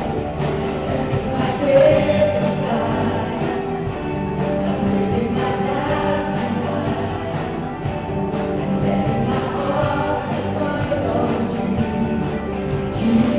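Live contemporary worship music: several singers singing together over a band of drum kit, guitar and keyboard, with a steady beat of bright percussion strokes.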